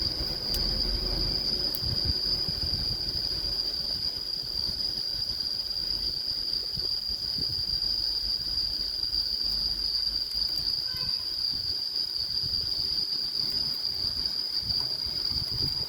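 A steady high-pitched whine that holds one pitch without a break, over a low rumble.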